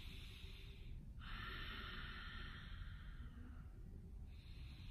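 A man breathing slowly and deeply through a held yoga stretch, each breath a soft hiss: one ends about a second in, a longer one lasts about two seconds, and another begins near the end.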